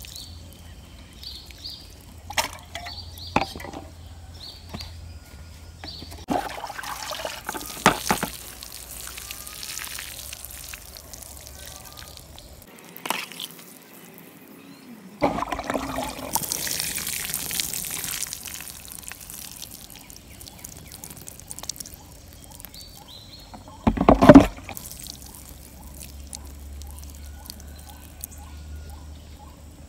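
Water pouring from a tin can punched with holes, trickling and spattering onto the soil of a seedling bed in two longer spells. A short loud knock comes about two-thirds of the way through, with faint bird chirps at times.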